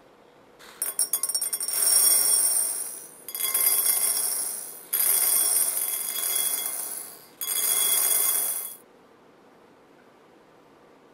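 Small candy beads poured into a ceramic bowl, rattling and making the bowl ring, in four pours that stop a couple of seconds before the end.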